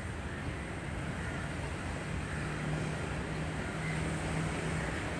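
An engine running steadily, with a low hum that comes in about two seconds in over a background rumble.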